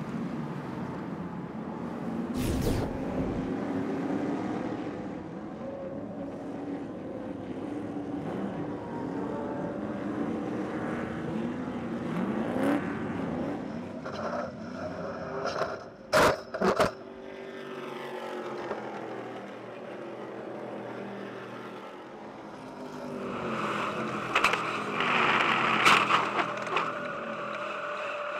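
Stadium Super Truck V8 engines racing, the pitch rising and falling through gear changes, with sharp knocks a couple of seconds in and again about two-thirds through. Near the end the engine is closer and louder, heard from inside the truck's cab, with rattling clicks.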